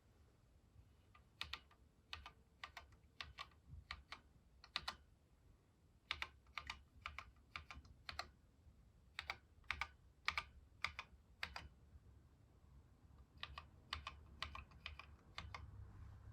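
Keys of a Sharp MZ-80K2E computer keyboard being typed in three short runs of keystrokes, with brief pauses between the runs.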